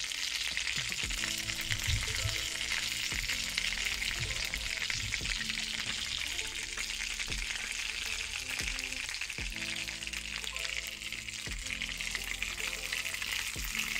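Hamburger patty with onions and green peppers sizzling steadily in hot oil in a frying pan on medium-high heat. Soft background music with a light beat runs underneath.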